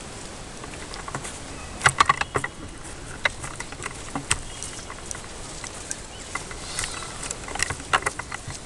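Scattered sharp clicks and taps over a steady hiss, with a cluster of them about two seconds in and another near the end.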